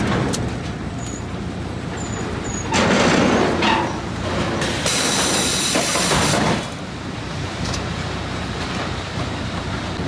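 Sawmill log-handling machinery running: log conveyors and a stepped log feeder clattering and rumbling steadily. A louder noisy surge comes about three seconds in, and a hiss runs from about five seconds to six and a half.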